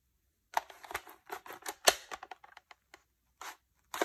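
Sharp plastic clicks and taps as the Bug-A-Salt Black Fly 3.0 salt gun's clear plastic salt hopper is handled. A quick irregular run of them lasts about two seconds, with the sharpest about two seconds in, and two brief ones come near the end.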